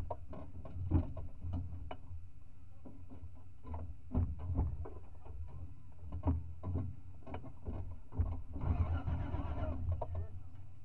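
Off-road vehicle's engine running at a low, steady hum heard from inside the roll-caged cabin, with scattered knocks and rattles. The engine picks up briefly a little before the end.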